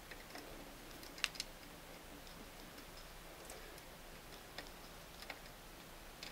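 Faint, scattered small metal clicks and taps as a screw and screwdriver are fumbled into place at the presser bar of a Singer Model 337 sewing machine. The loudest click comes about a second in, with a second one just after it.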